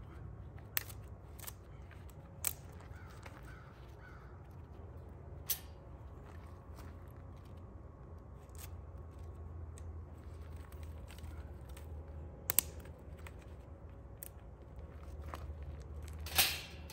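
Sparse clicks and knocks of gear and food being handled during meal prep, with faint bird cawing a few seconds in. A louder sharp scrape or clatter comes near the end.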